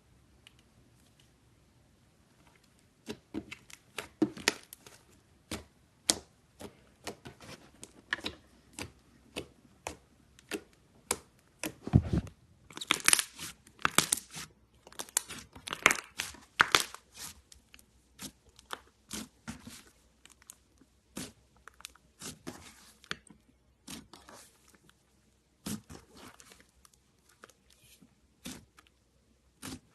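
White slime being squeezed and stretched by hand, giving a run of sharp crackling, popping clicks that start about three seconds in. The crackles come thickest and loudest around the middle.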